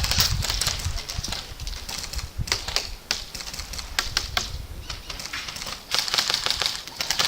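Airsoft guns firing: irregular runs of sharp, rapid clicks, thickest about six seconds in.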